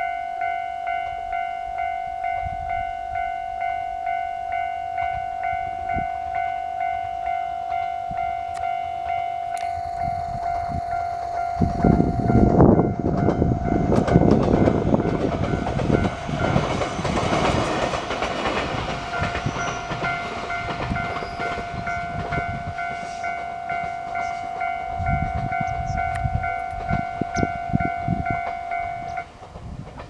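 A level-crossing warning bell rings in a steady, regular repeating ding while a two-car JR Oga Line train approaches. The train gets loud from about 12 seconds in and passes over the crossing with a rumble and clatter of wheels on the rails. The bell stops just before the end.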